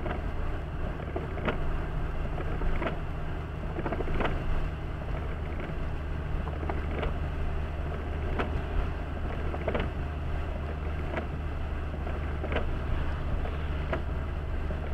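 Car cabin at about 70 km/h on a wet road: steady engine hum and tyre hiss, with the windscreen wipers sweeping across the glass about every second and a half.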